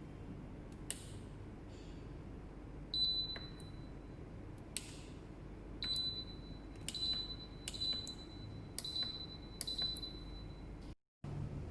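Short high electronic beeps from a car refrigerator's control panel as its buttons are pressed: about six beeps, each starting with a click, over a low steady hum.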